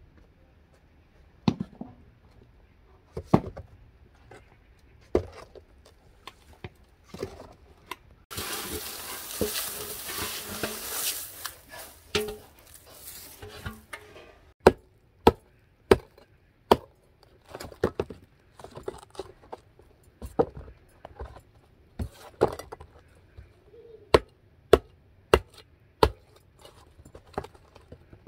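A hiss lasting about five seconds around the hot clay tandoor pit, then a long run of sharp, separate knocks as a metal tool strikes and breaks lumps of dried clay.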